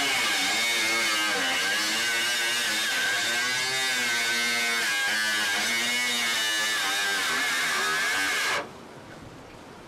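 Electric angle grinder cutting carbon-fibre strips, its high motor whine dipping and rising in pitch as the disc bites into the sheet, then cutting off near the end.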